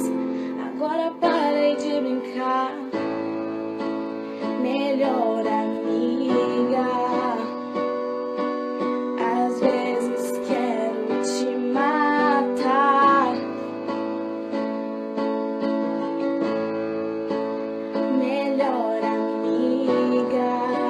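Pop song playing: steady guitar and keyboard chords with a female vocal line coming in and out over them.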